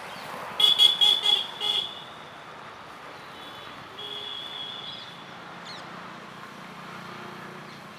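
Busy street traffic with a high-pitched vehicle horn tooting several short times in quick succession about a second in, then a single longer, fainter toot around four seconds in, over the steady noise of passing traffic.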